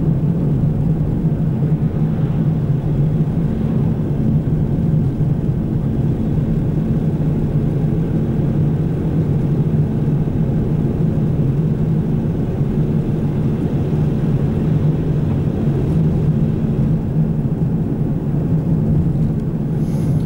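Steady engine and road noise of a vehicle driving along at constant speed, heard from inside the cabin, with a low hum that holds even throughout.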